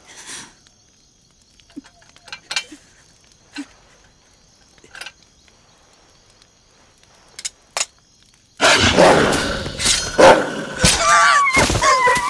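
A low, quiet background with a few scattered pops of a campfire crackling. About two-thirds of the way in a sudden loud rush breaks out as a wolf lunges, followed by wavering, vicious snarling.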